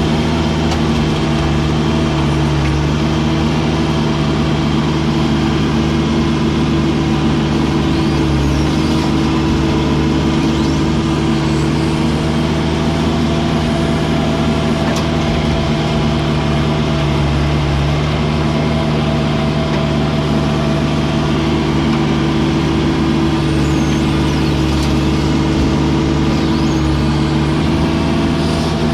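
Heavy diesel engine running steadily, its pitch dipping briefly several times.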